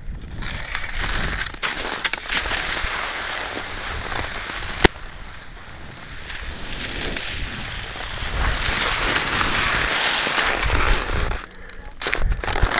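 Cross-country skate skis hissing and scraping over snow, swelling in two long glides, with wind rumbling on the microphone. There are scattered clicks and one sharp crack about five seconds in.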